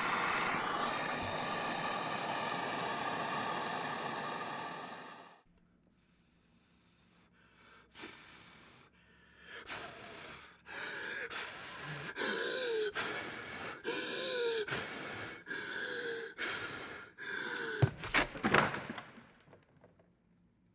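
Gas torch hissing steadily, shut off sharply about five seconds in, as the brass gear is heated for soldering to the Acme rod. Then a run of short squeaky rubbing strokes, about one a second, with a few sharper clicks near the end.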